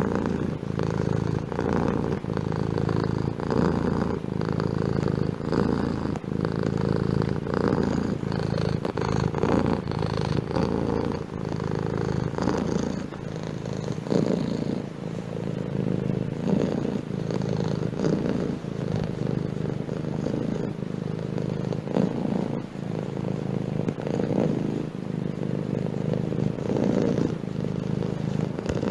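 Domestic cat purring close up: a continuous low rumble that swells and eases over and over.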